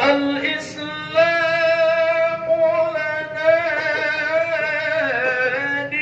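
A man chanting a Qur'an recitation (tilawah) in a very high voice into a microphone, holding one long melismatic phrase with wavering turns on a single breath, the line dipping lower near the end.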